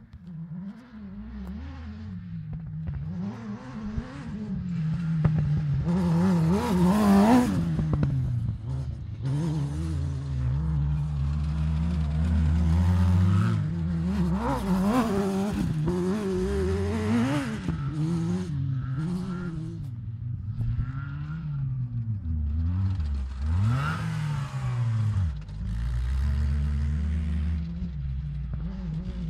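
Off-road buggy engine revving and dropping over and over as it is driven hard, the pitch climbing and falling every few seconds. It is loudest when the buggy passes close, several times.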